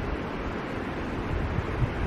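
Steady rush of the Middle Fork of the Boise River, with an uneven low rumble of wind on the microphone underneath.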